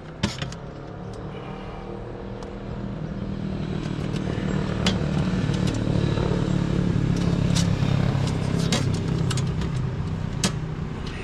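A motor vehicle engine passing by, growing louder to a peak past the middle and fading near the end. Over it come scattered small metallic clicks of a nut and bracket being handled.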